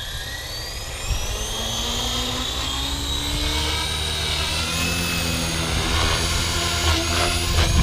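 Electric RC helicopter (Blade Fusion 550 with a Blade 4320 1350kv brushless motor and 550 mm rotor blades) spooling up: the motor and gear whine rises in pitch for about five seconds, then holds steady at head speed, over the whoosh of the rotor blades.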